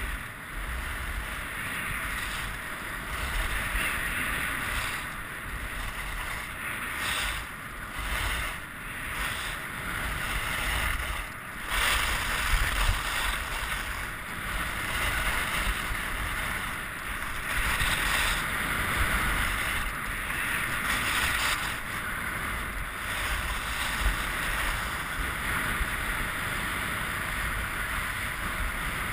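Skis sliding and carving on groomed snow, a continuous scraping hiss that swells and fades repeatedly, with wind buffeting the camera's microphone as a low rumble underneath.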